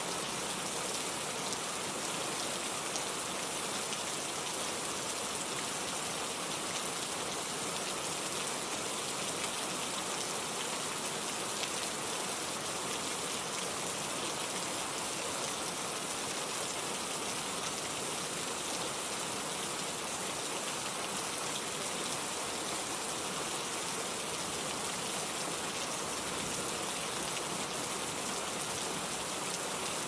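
Steady rain falling: an even, unbroken hiss of drops that neither swells nor fades.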